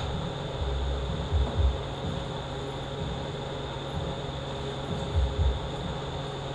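Steady low machine hum, with a few brief low thumps about one and a half seconds in and again about five seconds in.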